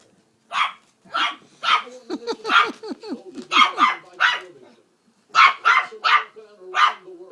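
A puppy barking in a rapid string of about a dozen short, sharp, high-pitched barks, in bunches with short pauses.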